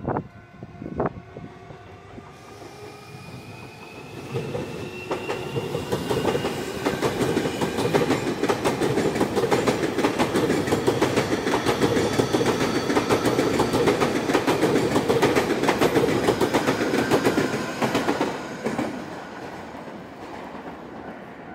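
Electric commuter train running past, its wheels clicking rapidly over rail joints. A rising motor whine builds over the first several seconds. The sound grows loud from about four seconds in and fades over the last few seconds.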